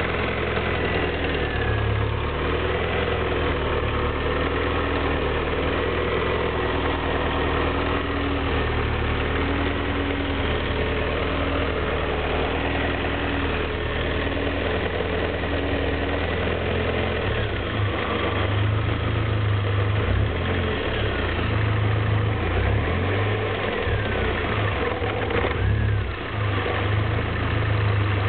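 Lotus Elise 111S's Rover K-series VVC four-cylinder engine running steadily at idle. A little past halfway its low note rises slightly and grows a bit louder.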